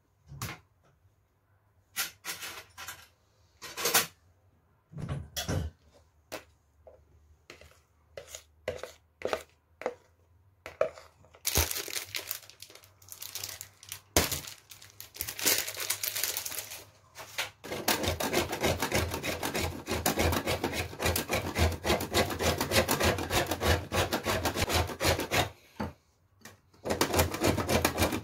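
Scattered knocks and clatter of kitchenware being set down, then a stretch of rustling. From about two-thirds of the way through, a bar of couverture chocolate is grated on a stainless steel box grater: a fast, steady rasping that stops briefly near the end and starts again.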